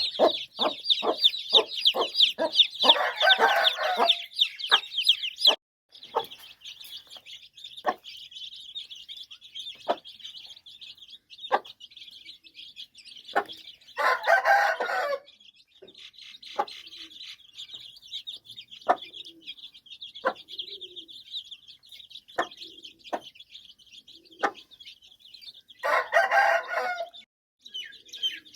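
Chicks peeping without a break while a mother hen gives short clucks, rapid at first and then spaced out. A rooster crows three times, about eleven to twelve seconds apart.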